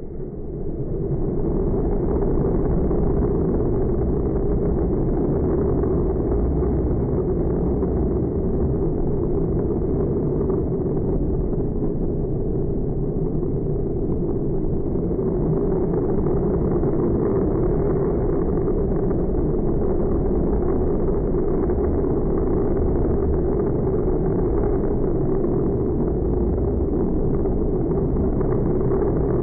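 Bigfoot monster truck's supercharged V8 held at high revs as the truck spins donuts. It is a loud, steady engine noise that swells up over the first second or two.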